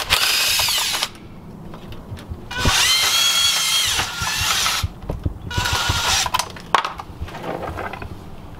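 Cordless power tool running in three short bursts as it spins out oil pan bolts. Each burst is a whine that rises in pitch as the motor spins up and falls as it stops, the middle one the longest at about two seconds, with scattered clicks near the end.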